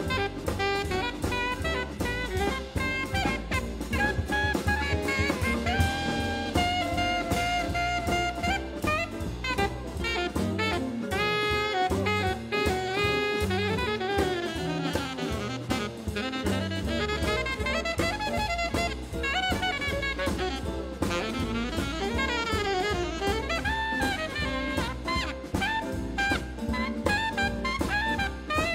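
Alto saxophone, a 1968 Selmer Mark VI, soloing in quick runs up and down over a jazz big band's rhythm section of drum kit and bass.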